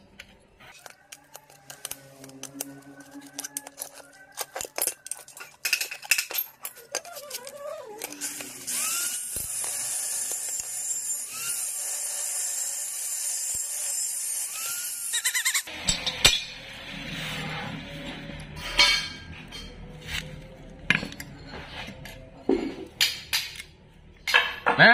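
Metal clicks and clinks of a wrench tightening the pivot bolt on a steel swing arm, over music playing in the background. A steady hiss runs through the middle, and the knocks grow louder in the last third.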